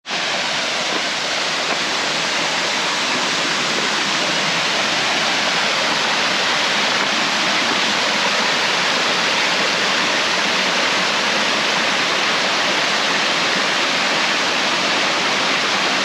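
Small roadside waterfall: a steady, loud rush of falling water, unbroken throughout.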